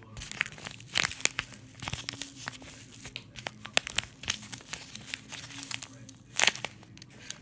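Homemade paper squishy being squeezed and handled, its paper crinkling in quick, irregular crackles, with a louder crinkle near the end.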